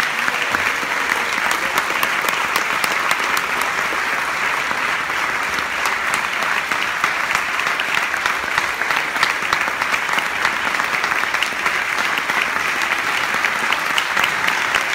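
Audience applauding: dense, continuous clapping that holds steady throughout.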